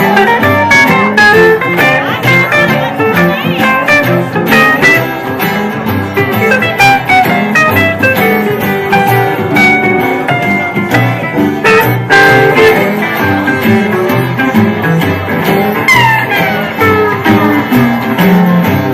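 Live band playing an instrumental break: acoustic guitars strumming the rhythm while a steel guitar plays the lead in sliding notes, with a long downward slide near the end.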